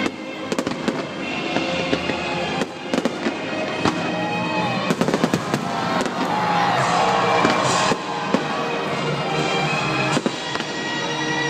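Fireworks going off in many quick bangs and crackles over music, with a dense spell of crackling about six seconds in.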